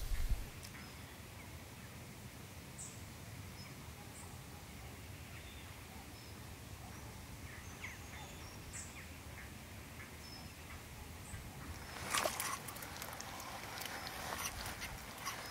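Faint outdoor ambience by still water, with scattered short bird chirps. About twelve seconds in, a burst of clicking, rustling and splashing as a fish takes the float and is struck.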